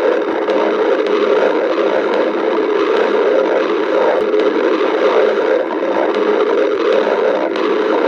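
A hungry stomach growling: a loud, steady, unbroken rumble that does not let up.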